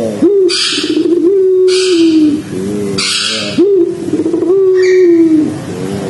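Puter pelung collared dove cooing: long, low, drawn-out notes, each opening with a quick upward swoop and then held, a new coo starting about every one and a half to two seconds, with short stretches of loud hiss between the coos.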